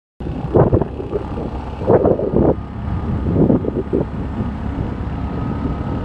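Wind buffeting an outdoor microphone, a steady low rumble that starts suddenly a moment in. A few short, louder, muffled bursts stand out over it in the first four seconds.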